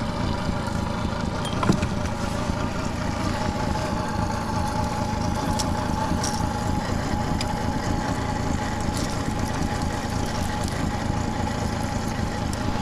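A fishing boat's outboard motor running steadily at low trolling speed. A thin steady whine joins in about three seconds in, and there is a single knock near two seconds.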